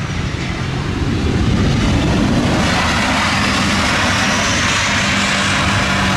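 Boeing 737 jet engines and airframe during the landing roll just after touchdown. A broad rushing jet noise grows louder about a second in and then holds steady, with a faint whine climbing in pitch.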